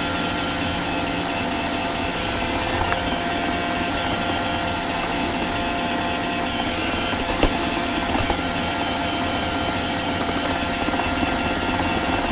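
iRobot Roomba robot vacuum running while towing a heavy load on a cable: a steady motor whine and hum, with a few short knocks.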